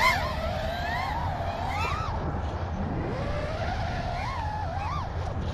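A 5-inch FPV freestyle quadcopter's Hyperlite 2207 2522kv brushless motors and propellers whining, the pitch swooping up and down as the throttle changes through a backflip and half roll, dropping low about three seconds in and climbing back.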